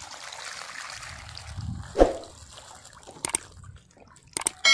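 Water trickling, dripping and sloshing as a hand net holding giant gourami fry is lifted out of a fish pond. There is one loud knock about two seconds in and a few sharp clicks near the end.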